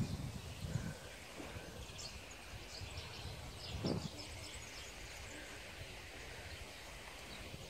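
Faint, high peeping of Muscovy ducklings in short scattered calls over a steady outdoor background hiss, with a brief low thump about four seconds in.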